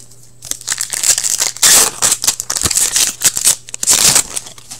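Crinkling and rustling of a foil hockey card pack wrapper handled by hand. It is dense and loud, starting about half a second in and dying away near the end.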